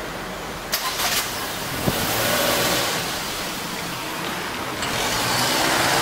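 Cars driving across a railway level crossing just after a train has cleared: a few sharp knocks about a second in, then steady engine and tyre noise that grows louder near the end.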